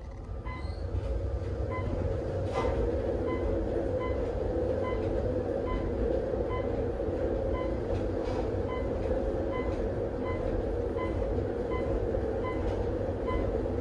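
Traction elevator car running fast on a long descent, a steady low rumble and hum of the moving car. A short high beep repeats evenly about every 0.8 s, roughly in step with the floors going by.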